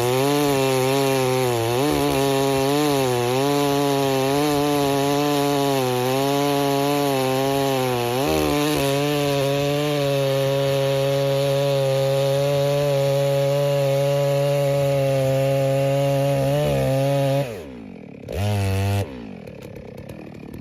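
Neotec clone of a Stihl 660 two-stroke chainsaw running at high revs, its pitch wavering up and down as if under load in a cut. Near the end the revs fall away sharply, come back in one short burst, then drop to a low level.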